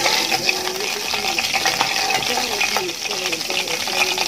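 Hot oil sizzling in a pan while a metal spatula scrapes and taps the pan bottom, lifting fried dried fish out of the oil.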